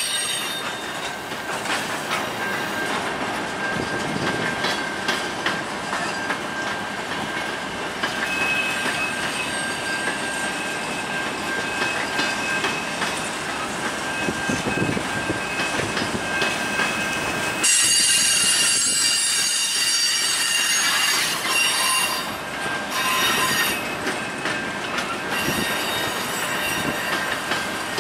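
Covered grain hopper cars of a freight train rolling past, their steel wheels clacking and rumbling on the rails. A steady high wheel squeal runs throughout, and a louder, higher squeal in several tones joins it for a few seconds just past the middle.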